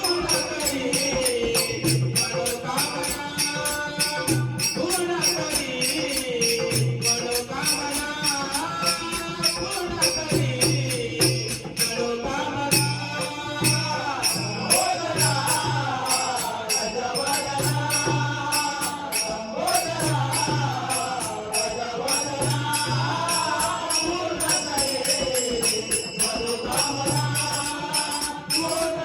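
Marathi devotional bhajan music: a gliding sung melody over a regular hand-drum beat and steady small-cymbal ticking.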